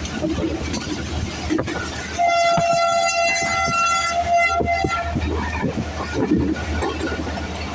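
Passenger train running with a steady low rumble, and a locomotive horn sounding once, held for about three seconds, starting about two seconds in.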